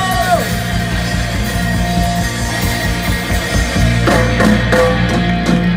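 Live rock band playing loudly on electric guitars and drums, a sung note falling away at the start.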